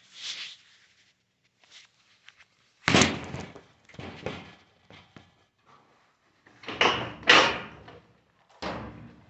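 A cover piece of a GE top-load washer being wiggled loose and pulled off: clattering knocks and scrapes, loudest about three seconds in and twice around seven seconds in, with a smaller knock near the end.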